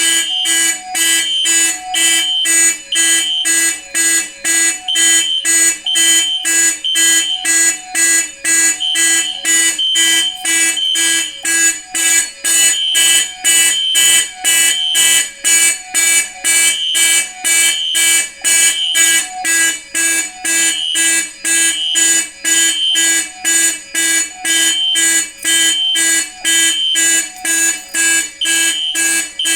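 Fire alarm horns, a Faraday 5430 and a System Sensor P1224MC horn strobe, sounding loudly together in rapid, even pulses: the panel in general alarm after a manual pull station was pulled.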